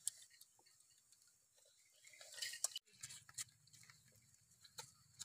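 Faint eating sounds: scattered small clicks and lip smacks of people chewing and biting cooked meat off the bone, a little busier about two seconds in.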